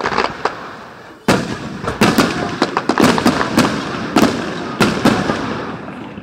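Fireworks bursting in quick succession. A few bangs at the start, then about a second in a dense run of sharp bangs over a steady crackle, easing off near the end.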